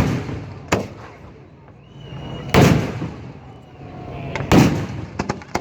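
Fireworks going off: a loud bang at the start and a smaller one under a second later, then two more big bangs about two seconds apart, followed by a quick run of sharp cracks near the end.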